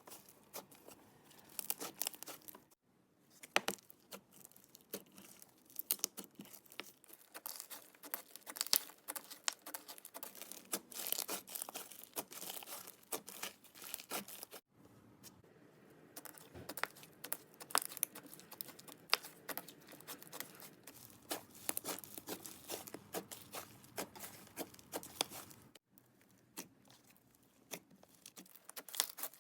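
Hands kneading and stretching clay slime: dense, irregular sticky crackles and pops, broken by a few abrupt cuts between clips.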